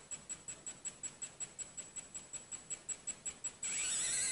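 Handheld 3D printing pen's filament-feed motor running, pulsing about seven times a second with a high whine as it drives ABS filament through. About three and a half seconds in, it changes to a steady, louder high whirr.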